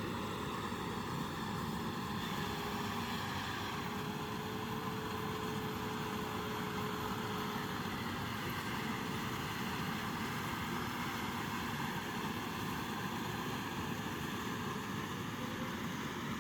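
An engine running steadily, an even drone that holds the same level throughout.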